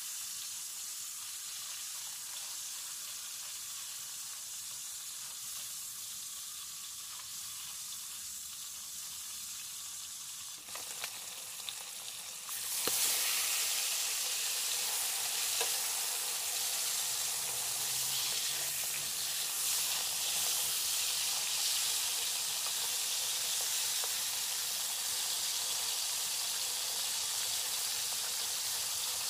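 Fish steaks frying in hot oil in a steel wok: a steady sizzle that gets louder about halfway through, with a few light clicks of wooden chopsticks against the pan as the pieces are turned.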